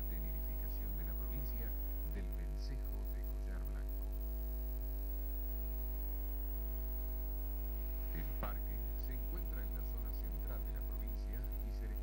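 Background music of softly plucked guitar notes over a loud, steady electrical hum, with the notes thinning out to just the hum in the middle.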